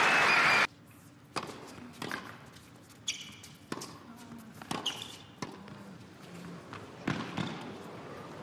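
Arena crowd applauding, cut off under a second in. Then a tennis point on an indoor hard court: tennis ball bounces and racket strikes on the ball, sharp separate knocks in a quiet hall, with a few short shoe squeaks.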